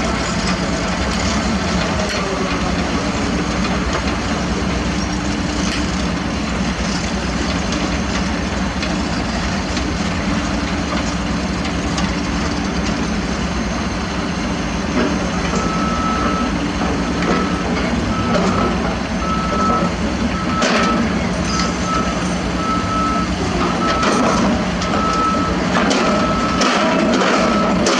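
Heavy construction machinery engines running steadily, with a reversing alarm starting about halfway through and beeping repeatedly to the end. A few metallic knocks are heard in the second half.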